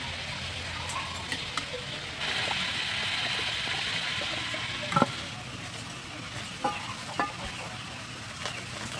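Slab of skin-on pork deep-frying in oil in a pot, with a steady sizzle that grows louder about two seconds in. A sharp click comes about halfway through, after which the sizzle is quieter, with a few light clicks near the end.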